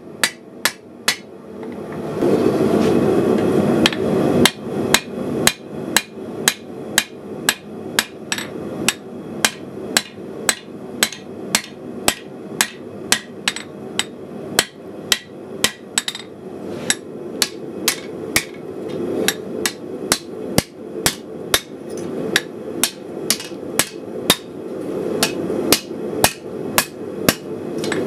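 Forging hammer striking a red-hot steel knife blade on an anvil in a steady rhythm of about two blows a second, each with a short metallic ring. A steady rushing noise runs underneath and swells for a couple of seconds near the start.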